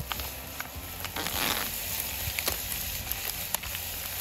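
A plastic food pouch being handled, with scattered crinkly clicks and a brief rustle about one and a half seconds in, over a steady hiss.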